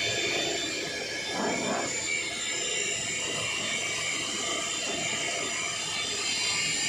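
Automatic keyway milling machine running: a steady machine whine made of several high tones, with a short rushing noise about a second and a half in.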